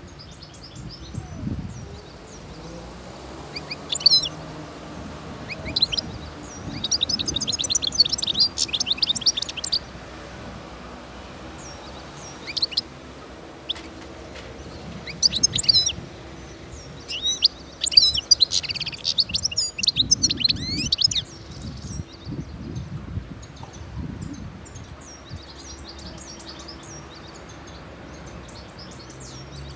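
Wild-caught European goldfinch singing in a cage: rapid, liquid twittering in bursts, with two long phrases of several seconds each and short snatches between them.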